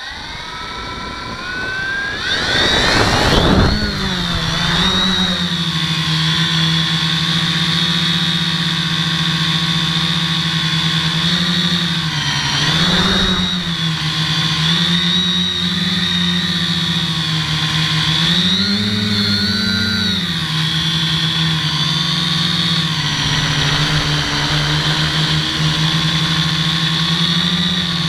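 Quadcopter's electric motors and propellers, heard close up from the camera on the craft: they spin up from rest, climb steeply in pitch at lift-off about two to three seconds in, then settle into a steady buzzing whine. The pitch swells briefly twice more, about halfway through and again a little later, as the throttle is pushed.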